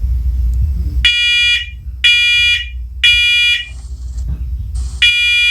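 First Alert talking smoke alarm sounding its smoke alarm during a test: loud, high-pitched beeps in the temporal-three smoke pattern. Three beeps about a second apart, a pause, then the next group begins near the end, with a low rumble before the first beep about a second in.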